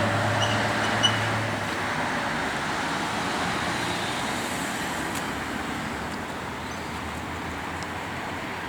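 Road traffic: a passing vehicle's engine hum over a steady wash of traffic noise, the whole slowly fading.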